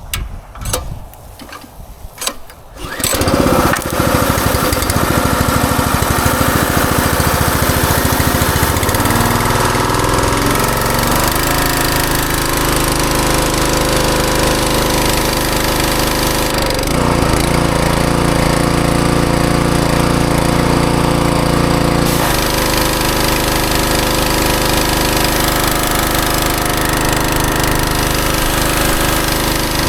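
Westinghouse WPX3200 gas pressure washer starting up about three seconds in, after a few clicks and knocks, then running loud and steady. Its engine note shifts a few times.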